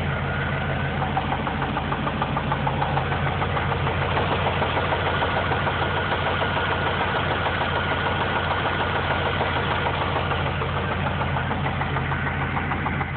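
Car engine idling with a rapid, regular knock over the running, found with the oil level low; his mechanic takes it for rod knock, while the owner suspects the lifters in the heads.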